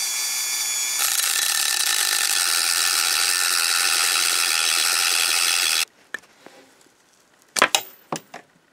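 A rotary tool spinning freely with a steady whine, then its thin abrasive cut-off wheel grinding through a brass screw about a second in. The cutting stops abruptly after nearly five seconds, and a few sharp clicks follow near the end.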